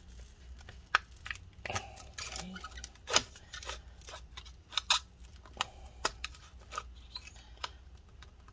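A thin metal pry tool slicing through the adhesive under a MacBook Pro battery cell as the cell is lifted, giving irregular sharp clicks and crackles as the glue tears.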